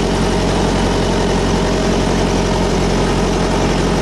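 Carrier trailer reefer unit's diesel engine running steadily in continuous run mode, an even drone with a constant hum and no change in speed.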